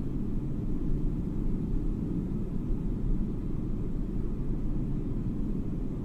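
Jet airliner cabin noise in flight: a deep, even rumble that holds steady throughout.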